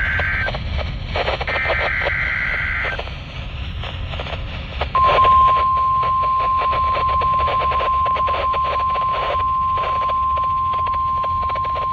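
NOAA Weather Radio EAS alert coming through a receiver. In the first three seconds come two buzzy two-tone bursts of the SAME digital header. About five seconds in, the steady 1050 Hz weather-radio warning alarm tone starts and holds, all over constant radio static.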